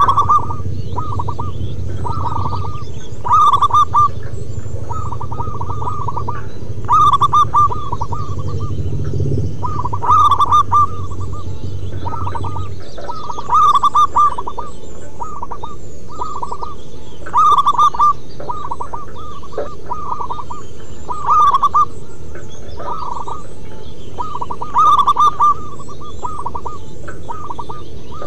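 Zebra doves (perkutut) singing: phrase after phrase of quick, staccato cooing notes, with the loudest phrases coming about every three and a half seconds. A low background rumble stops about halfway through.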